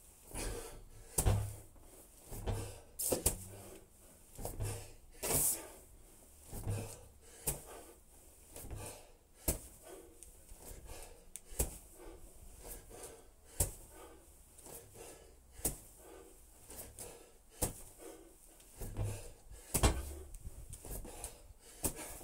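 Medicine ball thudding against a house wall and caught again on repeated wall-ball throws, a pair of dull knocks about every two seconds.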